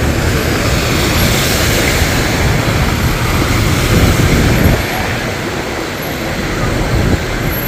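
Traffic on a rain-flooded street: passing vehicles' tyre hiss on the wet road over a low engine rumble. The hiss swells over the first few seconds, then eases.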